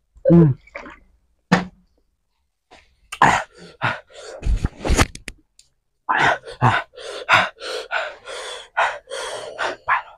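People coughing and gasping for air from the burn of extremely spicy noodles. Short breathy bursts come scattered at first, then in a quick string over the last few seconds.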